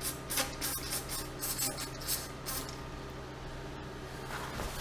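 Aerosol spray can being sprayed in a series of short hissing bursts during the first two and a half seconds.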